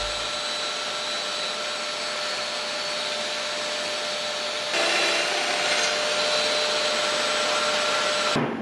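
Power tool's electric motor running at a steady pitch, getting louder about five seconds in and stopping abruptly near the end.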